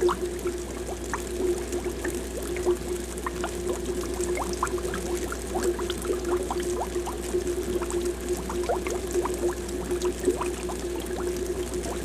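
Aquarium air bubbles rising and popping continuously: a dense stream of small bubbly blips over a steady hum.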